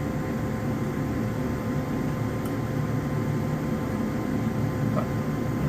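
Gas furnace's fan motor running with a steady hum and a thin whine, started by jumping the thermostat's red and white wires. That it runs with the thermostat bypassed is, to the owner, the sign that the thermostat is bad.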